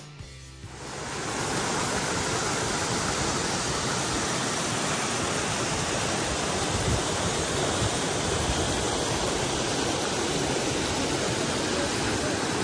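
Quiet background music fades out about a second in. It gives way to a steady, powerful rush of water cascading over rocks and a concrete spillway into a rock pool.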